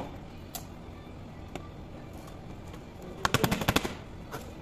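A quick rattling run of about ten sharp clicks, with a couple of single taps before it: a laptop's keyboard top-case frame clattering as it is handled and lifted.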